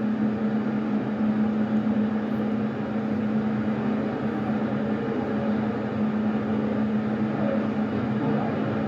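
CB radio receiver hissing with steady band static and a constant low hum while listening for a reply after the mic is unkeyed. No answering station comes through the noise.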